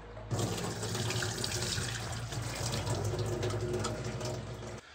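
Water running from a tap, with a low steady hum under it; it starts a moment in and cuts off just before the end.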